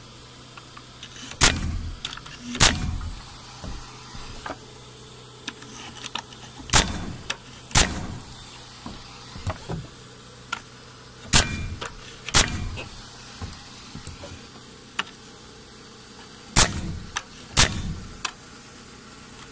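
Framing nailer driving nails through a galvanized steel wind-brace strap into 2x4 wall studs: eight sharp shots in pairs about a second apart, two nails per stud, with a few seconds between studs.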